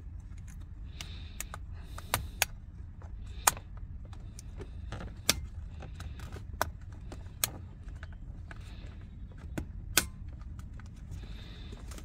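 Hard plastic clicks and knocks, about seven sharp ones with rustling and scraping between, as the Mercedes W211 electronic ignition switch (EIS) module is pushed by hand back into its dash housing, over a steady low rumble.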